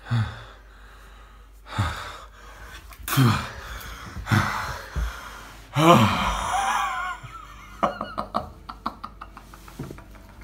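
A young man's voice gasping and groaning in about five short, loud bursts that fall in pitch, breaking into laughter about six seconds in. A run of light clicks follows near the end.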